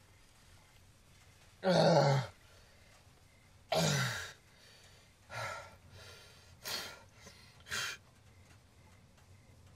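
A man groaning and gasping in pain, dazed just after a car crash: two loud groans with falling pitch, then three shorter, quieter breaths.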